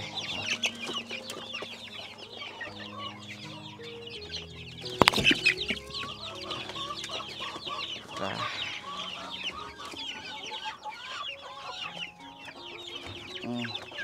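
A flock of young chickens peeping and clucking steadily as they eat scattered feed. A single sharp knock about five seconds in is the loudest sound.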